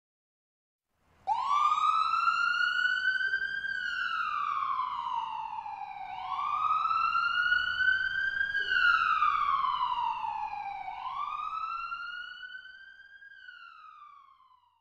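A siren wailing: its pitch rises slowly over two or three seconds and falls again, three times over. It starts about a second in, and the third wail fades away near the end.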